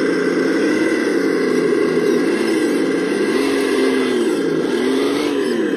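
An off-road 4x4's motor revving up and down, its pitch rising and falling several times as the throttle is worked, while the truck crawls up a steep, loose rock slope.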